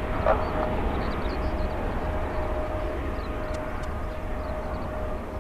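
Jet engine noise from a Boeing 777-300ER's two GE90-115B turbofans as the airliner climbs away after takeoff: a steady low rumble that slowly fades.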